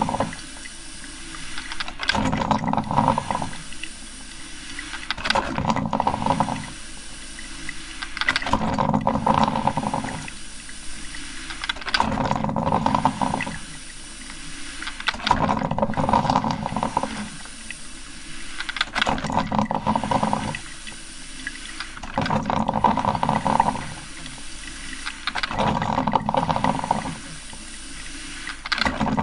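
Coffee maker brewing: regular gurgling surges of water and steam about every three seconds over a steady hiss.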